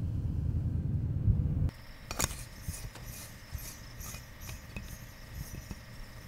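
A low rumble that cuts off about a second and a half in, then Foley of a glass filament light bulb being turned in its socket: a sharp click, followed by a run of small squeaky, rasping ticks of glass and metal threads, about two or three a second.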